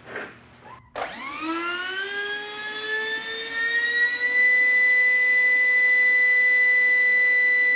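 Electric ducted-fan motor of a radio-controlled model jet spooling up, running off an 11.1-volt LiPo battery through a circuit completed by a gum wrapper. It starts suddenly about a second in as a whine that rises in pitch for about three seconds, then holds at a steady high whine.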